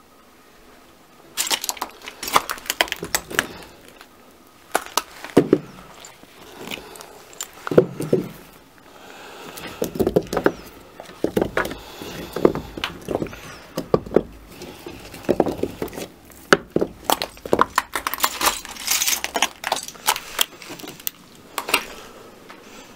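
Clay blocks knocking and clinking against one another as they are picked up and shifted by hand: an irregular run of sharp clacks starting about a second and a half in, with a few duller thuds.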